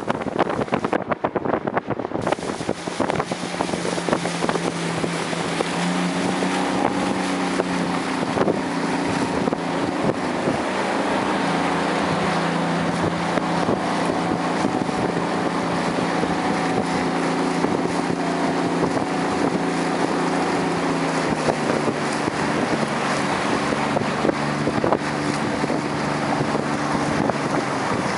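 Motorboat engine running under way, a steady hum whose pitch drops a little about three-quarters of the way through, with wind rushing over the microphone.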